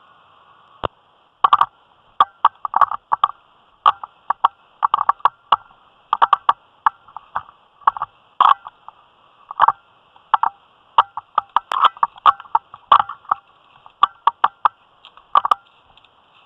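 Footsteps crunching through dry leaf litter and snapping twigs, an irregular run of sharp crackles about two or three a second.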